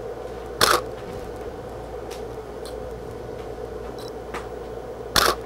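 Two shutter clicks from a tethered Canon DSLR, about half a second and five seconds in, over a steady faint hum.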